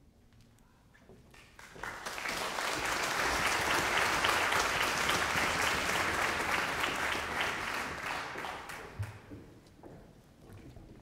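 Audience applauding in a hall: the clapping starts about two seconds in, holds full for several seconds, then dies away near the end.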